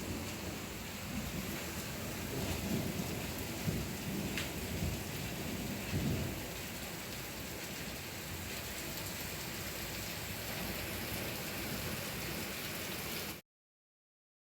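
Heavy rain and hail falling in a storm, a steady hiss with low rumbles of thunder swelling a few times. The sound cuts off abruptly about 13 seconds in.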